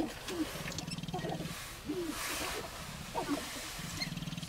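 Male sharp-tailed grouse displaying on a lek: three bursts of a rapid, low pulsing rattle from its stamping feet, with short clucking and cooing calls between them.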